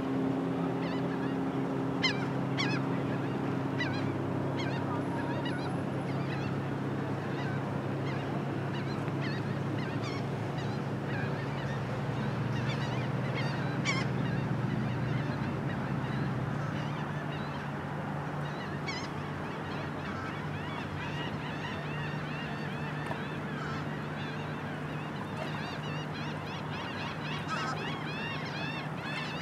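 A large flock of birds calling in a dense, continuous chatter, with sharper single calls and chirps standing out now and then. A steady low hum runs underneath and drops in pitch about halfway through.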